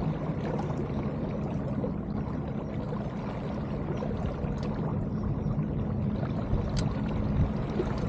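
Steady rushing and swishing of water along the hull of a sailboat moving fast under sail.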